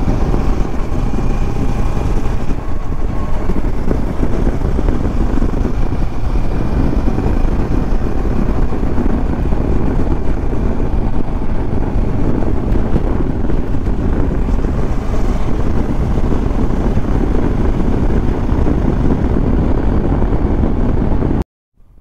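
Kawasaki Versys motorcycle riding at road speed: a steady mix of engine and wind rush on the bike-mounted microphone. The sound drops out completely for about half a second near the end.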